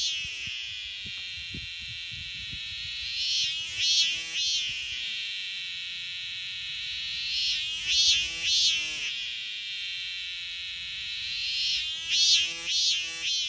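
Robust cicada (minmin-zemi) calling: about three pulsing phrases, roughly four seconds apart, each swelling and fading over a steady high drone. The uploader calls it an alarm call.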